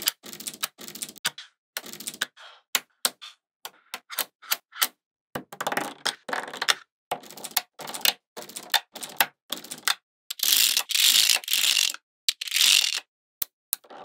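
Magnetic balls clicking and clacking as rows of them are snapped together and pressed into a slab: a quick, uneven series of sharp clicks, with longer rattling, scraping stretches about ten to thirteen seconds in.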